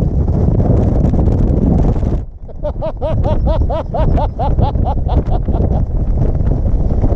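Strong gusting wind buffeting the microphone while MSR tent flysheets flap and snap hard. A little over two seconds in, the gust eases briefly and a run of about ten short, repeated rising-and-falling whistling tones is heard before the wind picks up again.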